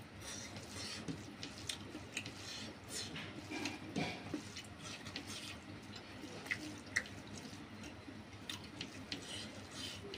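Eating sounds from a man eating rice and pork curry with his hand: scattered small wet clicks of chewing and lip-smacking, with soft rustles of fingers working the rice.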